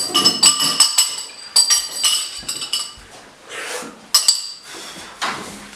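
Clinking and clattering of dishes and cutlery: a quick run of sharp, ringing clinks, a lull about three seconds in, then a few more clinks.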